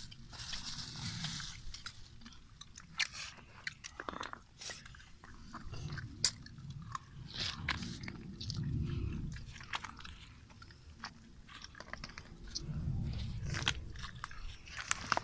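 Irregular sharp clicks and taps of snail shells being handled and picked open, with close chewing and crunching.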